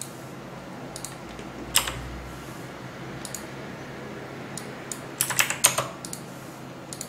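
Computer keyboard keys clicking: a few scattered keystrokes, then a quick burst of typing about five seconds in, as a value is entered into a field.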